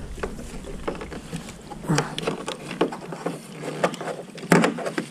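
Kayak and paddle being handled at the water's edge: a series of irregular hollow knocks and scrapes, the loudest about four and a half seconds in.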